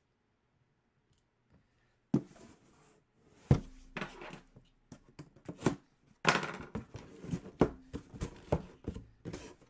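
Hands handling a trading-card box and its packaging: a string of irregular knocks and taps with rustling and tearing, starting about two seconds in.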